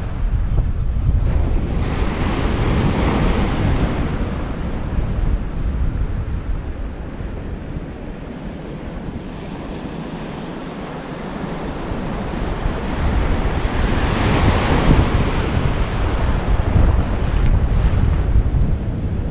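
Ocean surf breaking and washing up the beach, with wind buffeting the microphone. The wash swells up twice, about two seconds in and again near fourteen seconds, with a quieter lull between.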